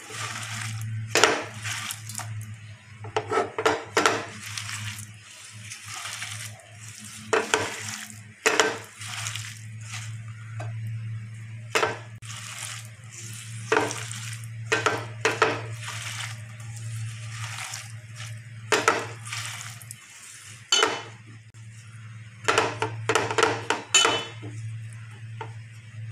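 A bare hand mixing chopped pointed gourd, prawns, onion and spices in a metal karahi: irregular bursts of rattling and scraping as the pieces and fingers knock against the pan. A steady low hum runs underneath.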